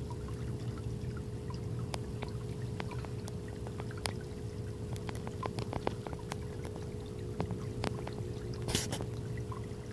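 Garden pond water trickling steadily, with scattered small drips and plops and one brief louder splash near the end, over a faint steady hum.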